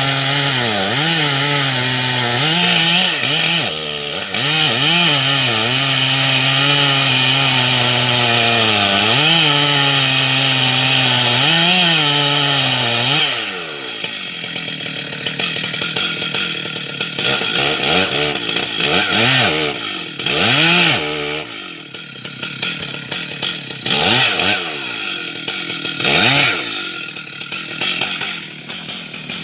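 Stihl MS 880 large two-stroke chainsaw at full throttle, its pitch wavering under load as it cuts through an ash trunk. About halfway through it drops back to idle, with several brief revs of the throttle.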